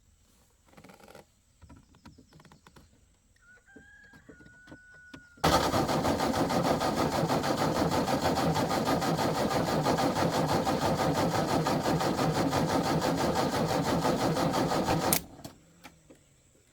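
A loud machine runs for about ten seconds with a fast, even rhythm, starting and stopping abruptly, after a few seconds of faint clicks.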